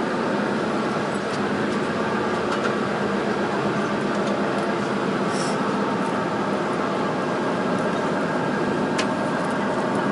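Steady running noise inside a Taiwan Railways Chu-Kuang Express passenger carriage in motion, an even rumble with faint steady tones through it and a few light clicks, the clearest about nine seconds in.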